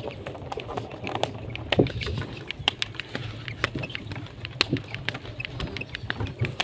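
Wooden animal-drawn cart rolling along a rough road, its planks and frame rattling and knocking irregularly over a low rumble.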